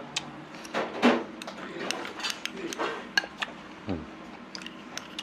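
Spoon and chopsticks clicking and clinking against a ceramic ramen bowl and a small saucer during eating, in many short sharp taps. There is a louder, noisier eating sound about a second in.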